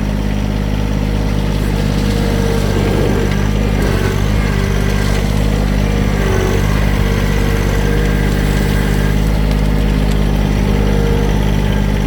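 Engine of a small gravel-moving machine running steadily under work, with a higher steady whine riding over it.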